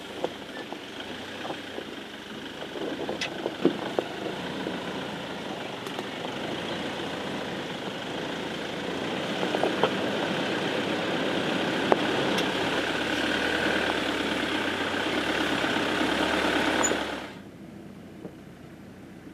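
Iveco Daily 4x4's diesel engine running at low revs as the truck crawls over rocky ground, growing louder as it comes closer, with a few sharp clicks of stones under the tyres. The sound falls away suddenly near the end.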